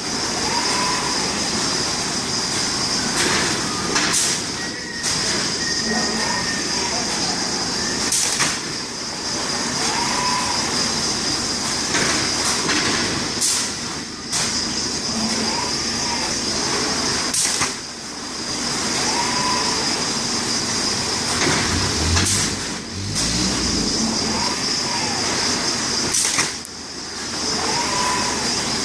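Fanuc 420iF palletizing robot cycling. Its servo motors whine, rising and falling with each arm move. Every four to five seconds a brief sharp release of air sounds as the gripper tool works, over a steady high-pitched hum.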